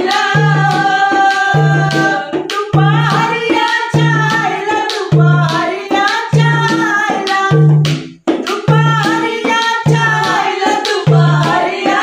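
Folk song: singing over a steady dhol drum beat, breaking off for an instant about eight seconds in.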